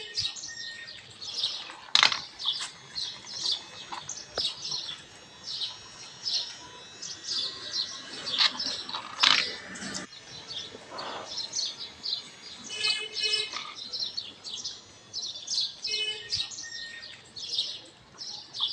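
Birds chirping continuously in quick, short, high notes, with a few sharp knocks in between.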